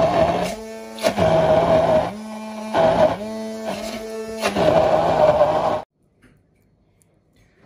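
Hand blender with a chopper cup grinding dried shrimp, onion, garlic and chilli into a thick paste, its motor pulsed on and off several times so the pitch drops and rises again. The sound cuts off suddenly about six seconds in.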